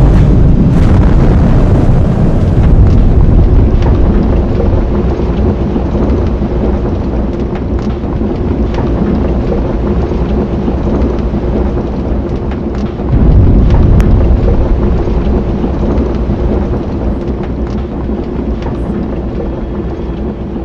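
Deep, continuous rumbling like thunder or an eruption, with a faint held tone beneath it; it swells louder again about 13 seconds in, then eases off.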